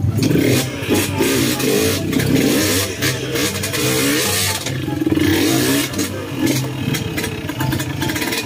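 Trail motorcycle engine revving up and down while riding over rough, rocky ground, with repeated knocks and rattles from the bike and the rocks.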